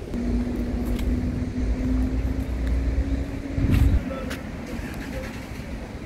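A car's engine rumbles with a steady hum. The rumble swells near the end and then drops away about four seconds in, leaving a quieter background hiss.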